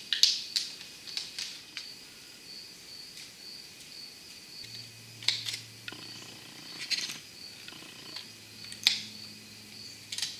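Scissors snipping through thin aluminium sheet cut from a pop can: a few sharp, crisp cuts in small clusters with pauses between.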